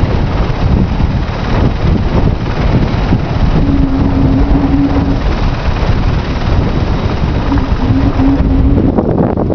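Strong wind buffeting the microphone in a loud, constant rumble. A faint steady hum comes through twice, around four seconds in and again about eight seconds in.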